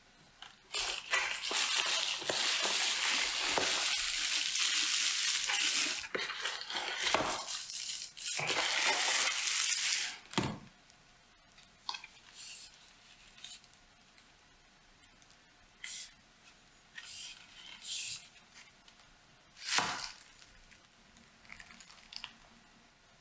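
Clear plastic wrap being cut and torn off, with a loud, continuous crinkling for about ten seconds. Shorter rustles and light handling knocks follow.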